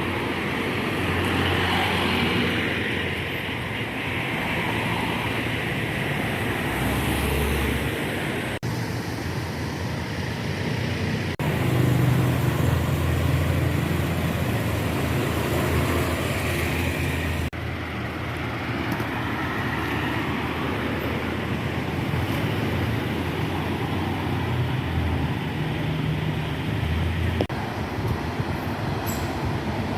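Tour bus engines running and traffic noise, with the low engine hum growing louder for a few seconds near the middle as a bus moves close by.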